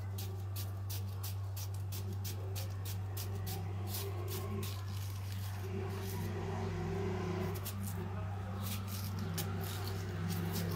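Kitchen knife cutting into crisp, juicy watermelon flesh, making an irregular run of sharp little crackling ticks, several a second, over a steady low hum.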